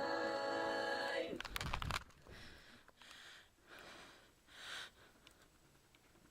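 A held musical chord cuts off about a second and a half in. A short, loud, noisy crash follows, then a few faint breathy sounds.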